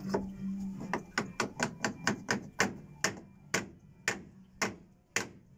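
Hammer tapping on a wooden cleat at the edge of a shower floor: a quick run of light, even strikes, about four a second, fading slightly toward the end.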